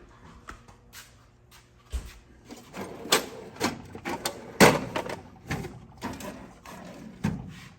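Tools and clutter in a garage being rummaged through and moved about: a string of irregular knocks, clatters and rustles, the loudest about four and a half seconds in.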